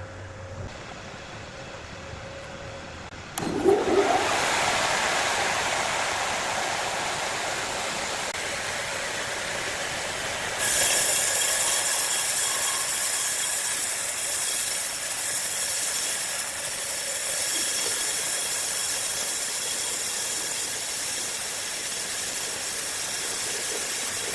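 A large wood saw machine starts up about three seconds in with a sudden loud, steady, hissing noise. About eleven seconds in it grows louder and brighter and stays that way.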